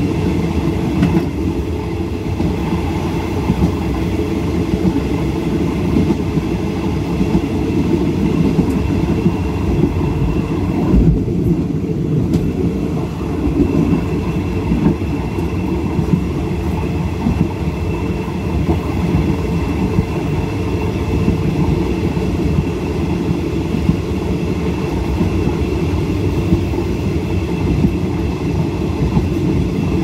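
Passenger train running on the rails: a steady, loud rumble of wheels and carriage.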